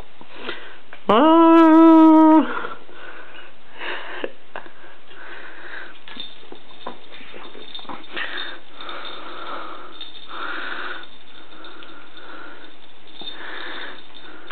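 One drawn-out call about a second in, steady in pitch and lasting just over a second. After it come soft, scattered rustles as a kitten wrestles a red pom-pom wand toy on a rug.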